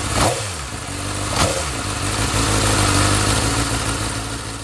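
Motorcycle engine running steadily, with two short sweeping rises in level in the first second and a half.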